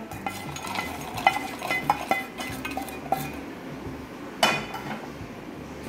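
Roasted peanuts and dried red chillies tipped from a frying pan into a stainless-steel mixer-grinder jar: a run of small clinks and taps on the metal, each ringing briefly, with one louder clatter about four and a half seconds in.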